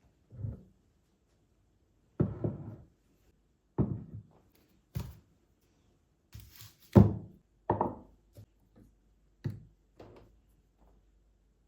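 A string of separate thunks and knocks, about nine in all at irregular gaps, of household objects being handled and set down.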